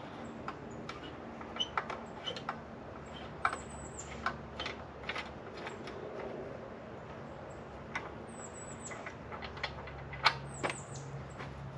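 Irregular light clicks and taps of objects being handled, over a steady low hum.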